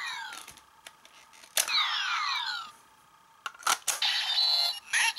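Kamen Rider Double DX Gaia Memory toy sound effects: a sharp plastic click, then a falling electronic swoosh from the toy's small speaker lasting about a second. Near the end come three quick button clicks and a short burst of electronic tones.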